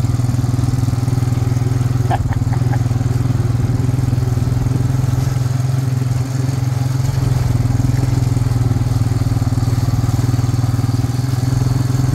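Four-wheeler (ATV) engine running steadily under way, a constant low hum with no change in pitch.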